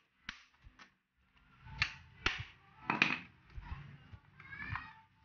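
A ratchet screwdriver clicks a few times as a screw on a scooter's plastic air filter case is backed out. Then come several louder knocks and plastic scraping as the case is worked loose by hand.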